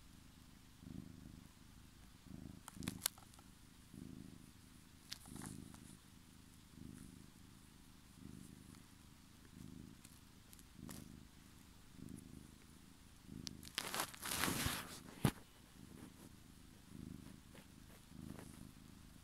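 Domestic cat purring steadily while being stroked, the purr swelling and fading with each breath about once a second. A few light clicks and, about three-quarters of the way through, a brief louder noisy scuffle.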